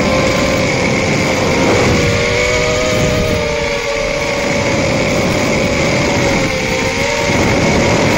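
Brushless motors of a small 1S FPV quadcopter running in flight, their whine wavering up and down in pitch as the throttle changes, over a dense steady hiss.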